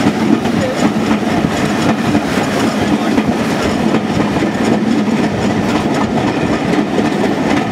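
DR73250 track tamper under way on the rails: its diesel engine running steadily, with wheel rumble and the clickety-clack of wheels over rail joints.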